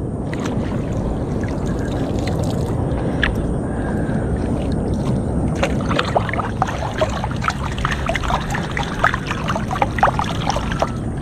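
Swamp water sloshing and lapping around a person wading and working a fishing net and scoop net. From about halfway through, a run of small splashes and drips joins the steady sloshing.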